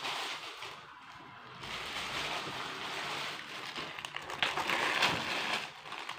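Rustling of plastic packaging being handled close to the microphone, with a few light knocks about four and five seconds in.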